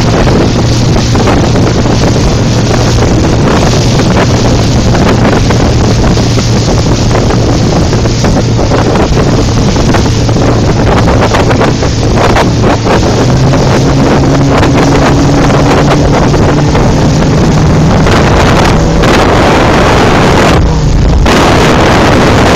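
Speedboat engine running hard at speed, its pitch rising a step about halfway through, with heavy wind buffeting the microphone.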